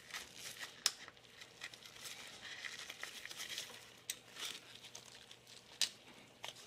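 A screw being backed out of a freshly self-threaded hole in plastic: faint scratching and creaking as it turns, with a few sharp clicks.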